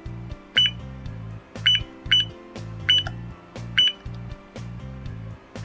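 Digital alarm clock beeping once for each button press as the minutes are stepped up: about five short, high beeps, roughly one a second, over background music.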